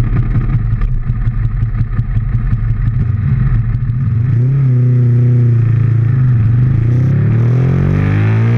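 Ducati 1098S L-twin engine running unevenly at low revs, then pulling away with the revs climbing steadily from about four seconds in and rising faster near the end, heard through the bike-mounted camera.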